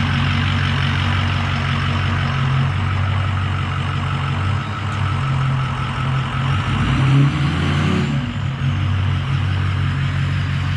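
Ford 6.0 Powerstroke V8 turbodiesel running steadily at idle, breathing through a newly fitted cold air intake with an oiled filter, its note swelling briefly about seven seconds in.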